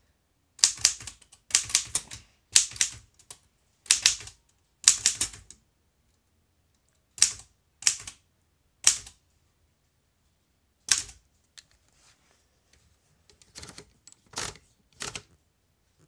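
Antique Remington manual typewriter being typed one key at a time: sharp separate clacks of the typebars striking the platen, about a second apart at first, then with longer pauses and a few softer clacks near the end.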